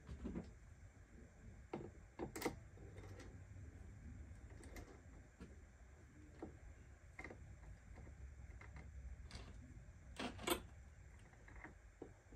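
Scattered light clicks and taps of a small hand tool and plastic parts being handled on an RC truck's front wheel and suspension, with a louder pair about two and a half seconds in and a cluster about ten seconds in, over a low steady hum.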